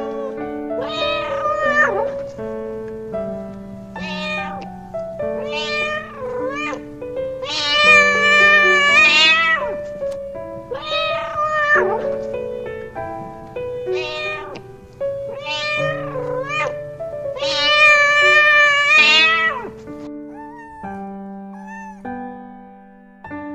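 A cat meowing again and again, about ten calls including two long drawn-out meows, over background music.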